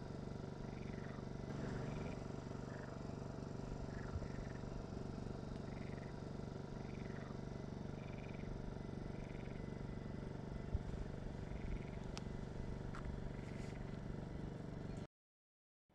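A steady low mechanical drone, with short high chirps over it about once a second; the sound cuts off abruptly shortly before the end.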